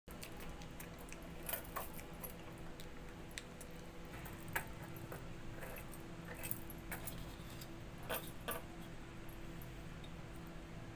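Glass bangles jingling and light clicks and taps on a metal plate as bananas are peeled and set out by hand. The clicks come scattered, a few a second at most, over a faint steady low hum.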